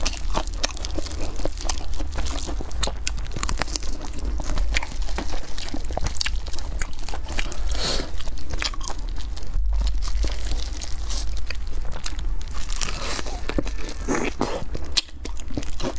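Close-miked crunching and chewing of crispy, sauce-coated breaded fried chicken, the coating crackling in a dense run of bites.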